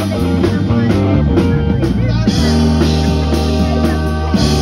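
Live rock band playing through a PA: electric guitar, drum kit and keyboard.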